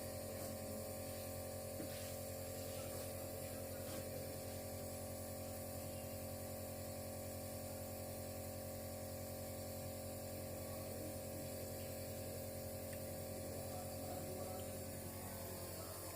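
Compressor nebulizer's motor running with a steady hum.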